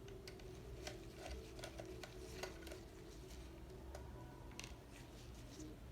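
A screwdriver taking out the screws on a laptop's bottom panel: faint, irregular small clicks and ticks of the driver bit and screws, over a steady faint hum.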